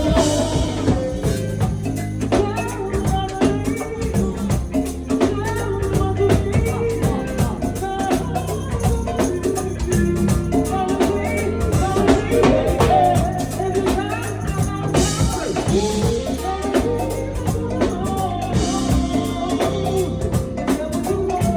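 Live band playing a jazzy number, with a drum kit keeping a steady beat over low bass notes. Cymbal washes ring out near the start and twice in the second half.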